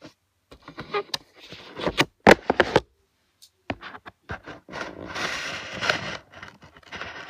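Close handling noise: scattered clicks, a quick run of loud knocks about two seconds in, then, after a short pause, a longer stretch of rustling and scraping.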